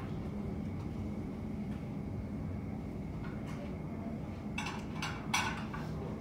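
Steady low hum of airport ramp ambience, with a short burst of clattering about four and a half to five and a half seconds in.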